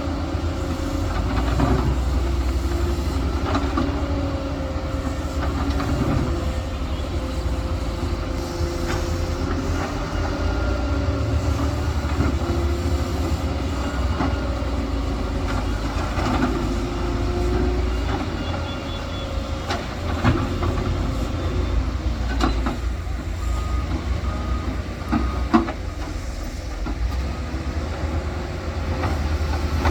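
Heavy diesel earthmoving machinery running steadily with a low rumble and a held droning tone, with a few sharp metallic clanks in the second half.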